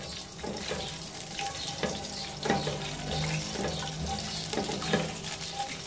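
Cumin seeds and whole spices sizzling in hot oil in a metal pot, the tempering (tarka) for rice, with a spatula scraping against the pot at irregular moments as they are stirred.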